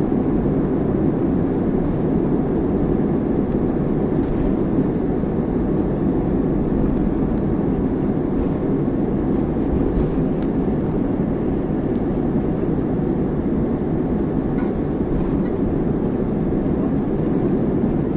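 Jet airliner cabin noise during the takeoff roll, engines at takeoff power: a loud, steady rush.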